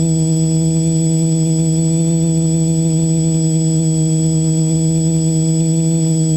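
Small multirotor drone's motors and propellers humming steadily, heard through the onboard camera, with a steady high whine above the hum.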